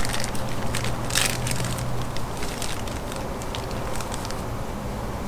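Thin plastic bag crinkling and rustling as it is handled and opened, with a louder rustle about a second in.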